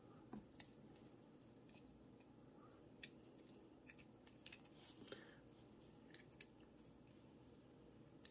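Faint, scattered small metallic clicks and scrapes: Allen screws being worked out of an aluminium pistol compensator with an Allen wrench, the sharpest pair of clicks about six seconds in.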